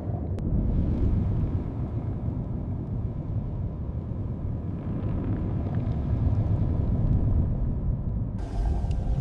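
Steady, low rumbling deep-underwater ambience. Near the end a new layer with faint sustained tones and a brighter hiss comes in.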